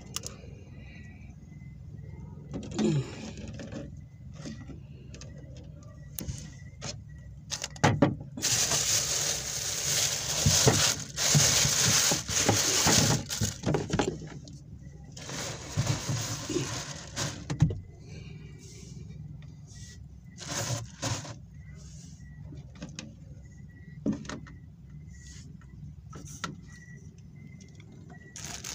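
Close handling noise, rustling with scattered knocks, loudest for several seconds in the middle, over a steady low hum.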